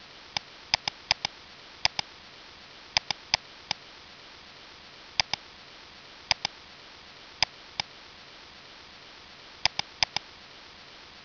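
Computer mouse button clicking: single clicks and quick double-clicks scattered irregularly, over a steady faint hiss.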